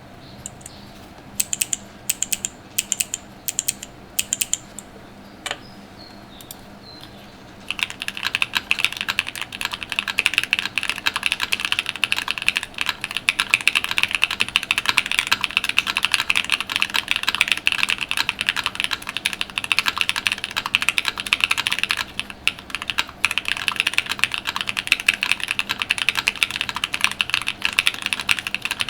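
Typing on a Vega mechanical keyboard with Chosfox Hanami Dango linear switches, an aluminium plate, full foam dampening and GMK doubleshot keycaps. It starts with a handful of separate keypresses, then becomes fast, continuous typing after about eight seconds, with a short lull about three-quarters of the way through.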